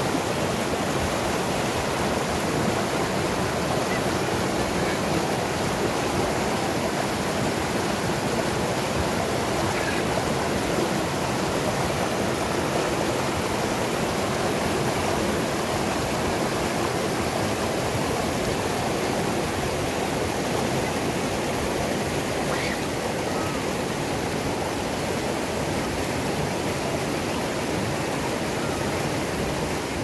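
River rapids: white water rushing over rock ledges in a steady, unbroken rush.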